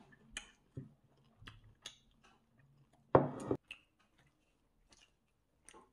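Eating sounds: chewing Korean fried chicken, with scattered small clicks and crunches and one louder noise lasting about half a second, about three seconds in.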